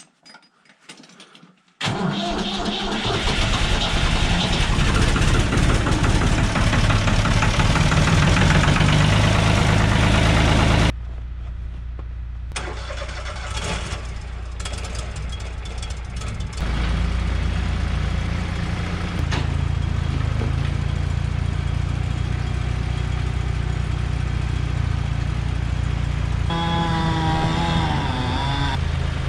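Cold sawmill engine, warmed on a block heater, starting about two seconds in and running fast and loud, then dropping sharply to a lower idle about eleven seconds in and picking up speed again a few seconds later. A wavering whine rides over the engine near the end.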